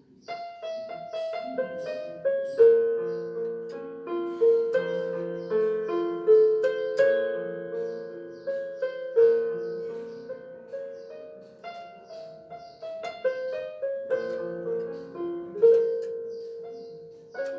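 Casio CTK-3500 digital keyboard's piano tone, played by hand as a melody over held chords in a gentle, flowing run of notes.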